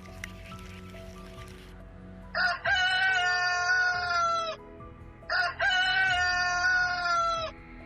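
A rooster crowing twice, each crow a short first note followed by a long held call that drops at the end. Soft background music plays underneath.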